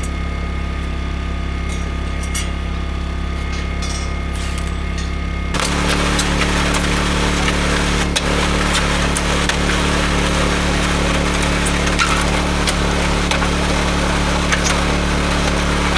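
A machine engine running steadily, with a few sharp metal clinks in the first seconds. About five and a half seconds in it gets louder, with a harsh rushing noise over the engine.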